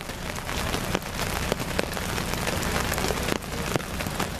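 Steady rain falling, with frequent sharp taps of drops striking the open umbrellas close by.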